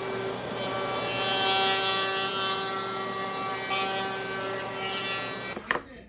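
Table-mounted trim router running at full speed with a steady high whine while a wooden part is fed against its bit, the bit's cutting hiss rising and falling over the motor tone. The sound cuts off abruptly near the end.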